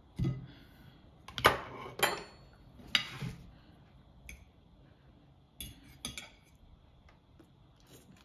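Utensils clinking and clattering against dishes, a string of sharp knocks, the loudest in the first three seconds and two more about six seconds in.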